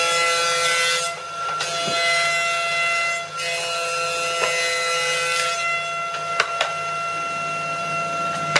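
Electric thickness planer running with a steady whine while its cutter head planes a wooden board. The cutting noise thins briefly about a second in and again around three seconds, and a few sharp knocks come near the end.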